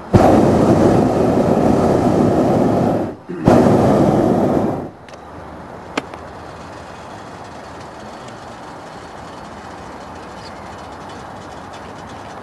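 Hot-air balloon's propane burner firing in two blasts, about three seconds and then a second and a half, with a short break between. A single sharp click follows a second later, then a low steady background.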